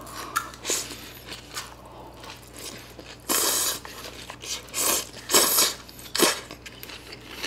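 Slurping rice noodles and chewing a mouthful that includes fried pork cutlet, in a string of short bursts; the longest and loudest slurp comes a little past three seconds in.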